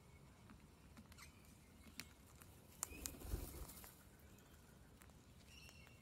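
Faint, scattered clicks of an Australian king parrot's beak pecking at a seed bell of nuts and seeds, with a short, louder rustling flurry about three seconds in.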